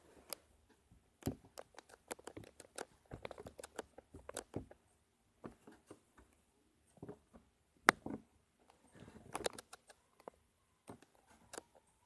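Clay slime being squished and poked by hand: scattered soft sticky clicks and crackles, the sharpest about eight seconds in.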